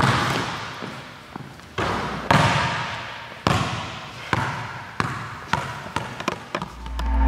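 Basketball bouncing on a hardwood gym floor: separate bounces at irregular spacing, each ringing out with a long hall echo. Near the end a low music bed swells in.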